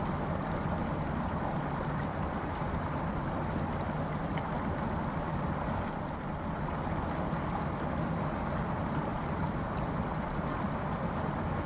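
Shallow stream flowing through an open channel in the ice close to the microphone: a steady, even rush of running water.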